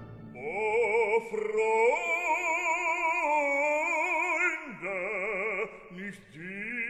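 Soundtrack music: an operatic voice holding long notes with a wide vibrato, sliding down between phrases.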